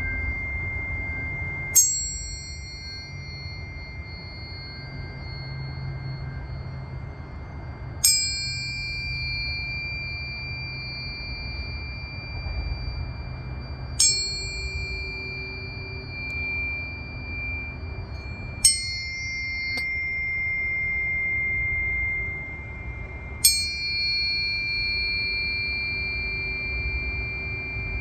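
Tuning forks of a C, G and F sound-healing set struck in turn, five times about five seconds apart: each strike a sharp metallic ping followed by a long ringing tone that fades slowly.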